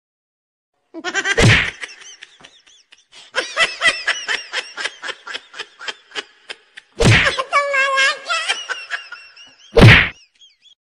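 Comedic whack sound effects: a loud hit about a second and a half in and another near the end. Between them runs a fast string of clicks and short chirping pitch glides, with a wavering pitched sound about seven seconds in.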